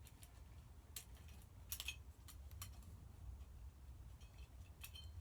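Faint clicks and a short scrape as the lower canopy piece of a Hunter Waldon ceiling fan is rotated loose on its loosened screws, over a low steady hum.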